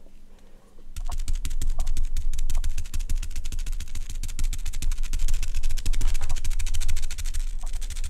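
Makeup applicator worked rapidly over the camera's lens and microphone, a dense run of close-up scratchy strokes starting about a second in.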